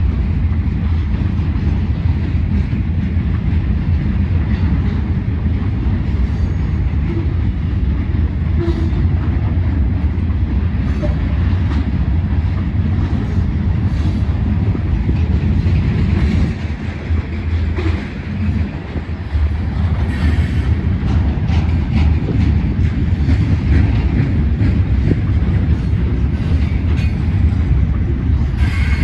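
Ferromex freight train rolling past: a loud, steady low rumble with the clatter of railcar wheels over the rails, easing briefly about two-thirds of the way through.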